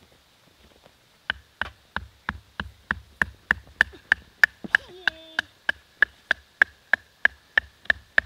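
Hatchet and kindling being struck over and over to split the wood: quick, regular knocks about three a second, each with a short metallic ring, starting about a second in. A short child's voice sounds once midway.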